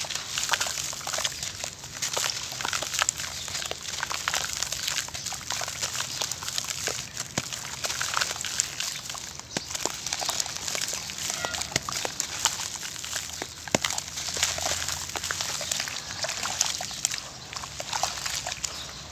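Hands squeezing and kneading wet, gritty grey paste in a glass bowl: continuous wet squelching with a dense crackle of grit.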